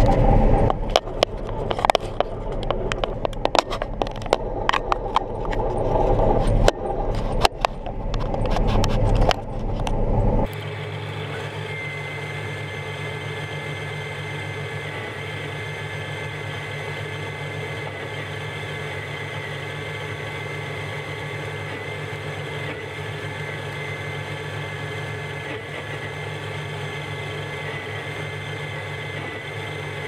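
Clicks, knocks and scraping as a camera is handled and clamped onto a mount, over the running John Deere 9500 combine, for about the first ten seconds. Then an abrupt change to the steady drone of the combine heard from inside the cab, with a steady high whine.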